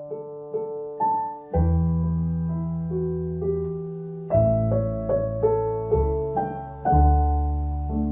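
Background solo piano music: a slow melody of single notes over low bass notes.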